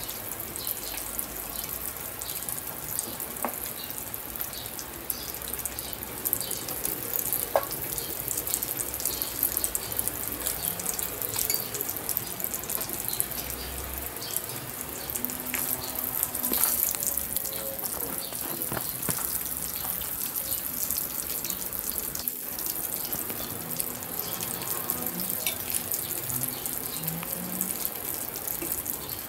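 Chicken pieces deep-frying in a wok of hot oil: a steady sizzle with many small crackles and pops.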